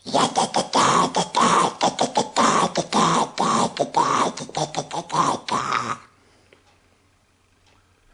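A man's voice imitating Gremlin creature chatter: a rapid run of short, babbling syllables with no real words, stopping about six seconds in.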